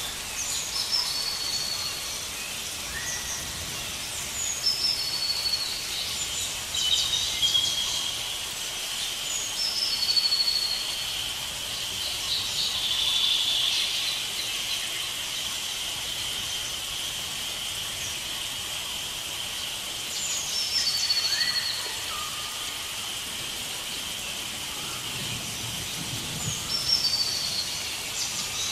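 Rainforest ambience: a bird sings short, high falling phrases, repeated every few seconds, over a steady high-pitched drone and a soft background hiss.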